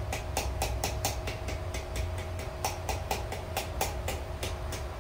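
Blacksmith's hand hammer striking steel on an anvil in a steady rhythm, about five blows a second, over a steady low hum.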